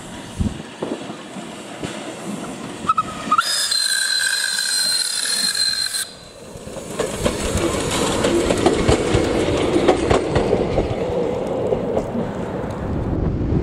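English-built steam motor coach SMC1 'The Coffee Pot' sounds its steam whistle for about two and a half seconds, a couple of level tones with a steam hiss over them. It then draws close and passes with a building clatter of running gear and wheels on the rails.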